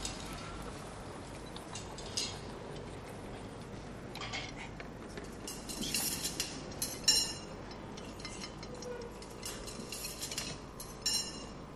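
Scattered light clinks of cutlery, plates and glasses over a low steady background: restaurant dining-room clatter.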